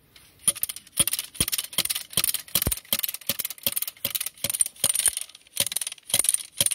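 A Plantra flexible tree-shelter stake being driven into the ground with its hand driver: a steady run of sharp strikes, a little over two a second, starting about half a second in.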